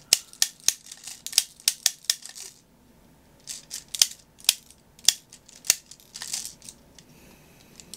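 Sharp plastic clicks of 6 mm BBs being pushed into a Tokyo Marui USP9 gas blowback pistol magazine from a hand-held BB loader: a quick irregular run of about five clicks a second, a short pause about two and a half seconds in, then slower single clicks and a soft rustle of handling.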